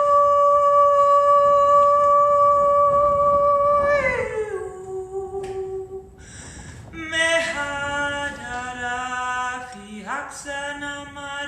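A woman singing wordless light language: one long held high note that glides down about four seconds in and holds lower, then after a short pause a run of sliding notes stepping up and down.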